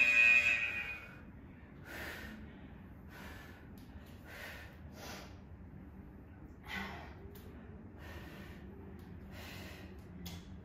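A woman breathing hard from exertion during kettlebell deadlifts and squats, short sharp breaths in and out about once a second.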